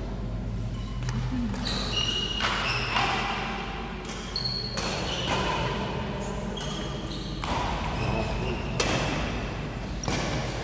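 Badminton rally: rackets strike the shuttlecock about ten times at uneven intervals, with short high squeaks from shoes on the court floor.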